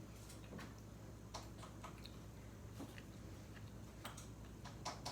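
Faint, irregular small clicks and ticks of eating: mouth sounds and food being handled, scattered through the quiet room.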